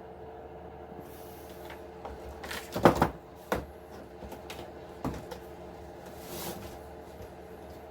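Knocks and clatters of the plastic body and parts of an RC truck being handled, the loudest a quick cluster about three seconds in, with single knocks after and a short scrape near the end, over a steady low hum.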